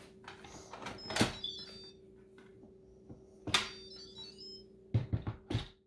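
Kitchen handling sounds: two sharp knocks or clinks that ring briefly, then a quick run of smaller knocks near the end, over a steady low hum.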